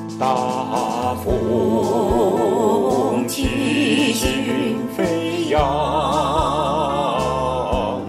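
Singing voice holding two long notes with wide vibrato over a MIDI accompaniment with a steady beat.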